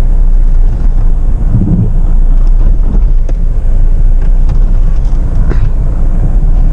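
Jeep Meridian's diesel engine idling as the SUV crawls over rough off-road ground with no throttle, under a loud, steady low rumble with wind on the microphone. A few light clicks and knocks come from the terrain and the bodywork.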